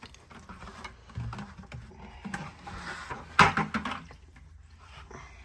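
Handling noises: rustling and light knocks as things are moved about, with one sharp knock about three and a half seconds in.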